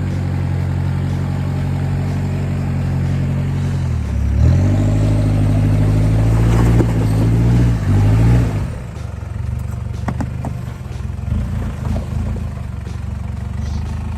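Off-road 4x4 truck engine pulling steadily, then revving up and down under load from about four seconds in as it works over a rocky trail obstacle. It drops back to a quieter, lower running sound about halfway through, with a few scattered knocks.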